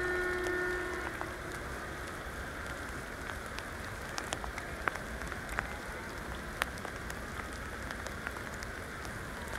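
Steady rain falling, with scattered single drops ticking sharply close to the microphone. A faint steady pitched tone sounds for about a second and a half at the start.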